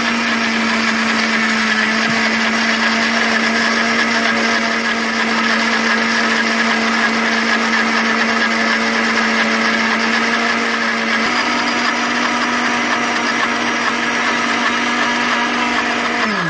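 Electric countertop blender running steadily, blending a runny sauce, with a steady motor hum. The hum shifts slightly about eleven seconds in, and right at the end the motor switches off and winds down, falling in pitch.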